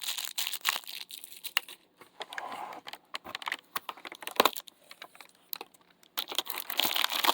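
Plastic packaging crinkling and rustling as small toys are handled and unwrapped, with scattered clicks and one sharper tap about four seconds in.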